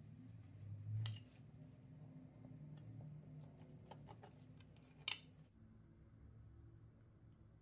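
Knife cutting through the crisp shortcrust and crumble topping of a baked plum tart: faint crunching and scraping, with a louder crunch about a second in and a sharp click of metal against the plate about five seconds in. A faint low hum runs underneath.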